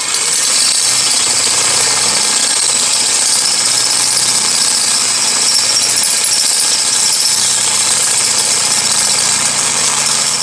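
Power drill running steadily under load, reaming out the bolt holes in an intake manifold to take larger bolts.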